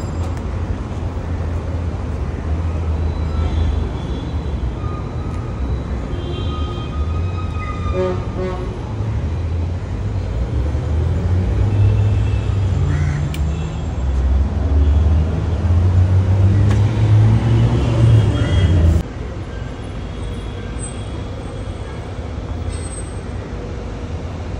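Busy road traffic with a low engine rumble, and vehicle horns tooting now and then. The rumble drops suddenly about three-quarters of the way through and carries on quieter.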